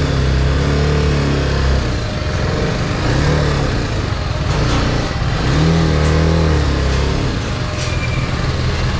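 Sports motorcycle engine idling and revved three times with short throttle blips, the pitch rising and falling back over about a second each time.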